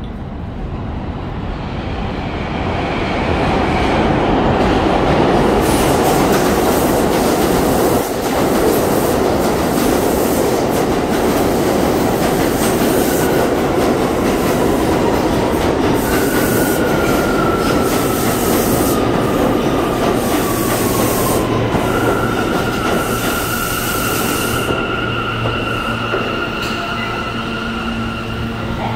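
R179 New York City subway train pulling into the station: a rumble of steel wheels on rail that swells over the first few seconds and stays loud, then high wheel and brake squeals in the second half, one sliding slowly down in pitch, as it slows to a stop. A steady low hum comes up over the last several seconds.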